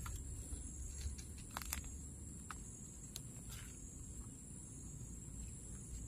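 A continuous high-pitched insect call, holding one steady shrill pitch throughout, with a few light clicks and rustles from hands in dry grass and soil.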